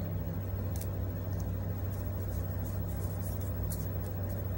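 Steady low hum with a few faint, soft ticks of Pokémon trading cards being handled and slid through the hands.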